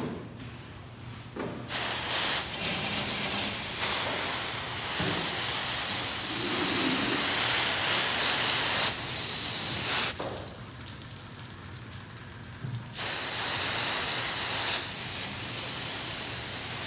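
Water spraying hard from a hand-held hose nozzle onto the metal side panels of a fire engine, a loud steady hiss. It starts about two seconds in, stops about ten seconds in, and starts again about three seconds later, running until the very end.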